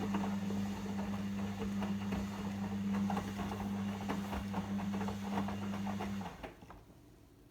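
Logik L712WM23 washing machine running: a steady electrical hum with a fast, crackly rattle over it, which cuts off suddenly about six seconds in.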